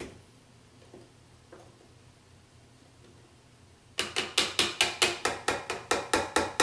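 A quick run of sharp metal taps at a tilt-head stand mixer's raised flat beater over its steel bowl, about five a second, starting about four seconds in: cheesecake batter being knocked off the beater.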